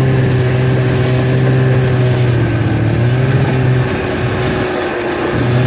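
Snowmobile engine running steadily at a moderate pace. It eases off about four seconds in, then picks back up.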